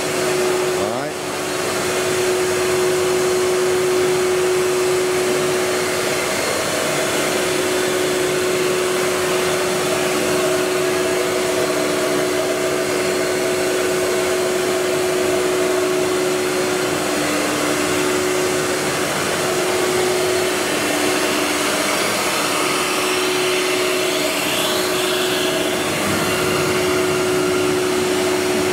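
A large electric blower runs steadily in the workshop: an even rush of air with a steady motor hum over it.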